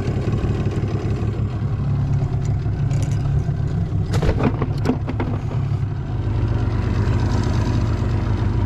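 Boat's outboard motor running steadily at trolling speed. A few sharp knocks and clatters sound about four to five seconds in.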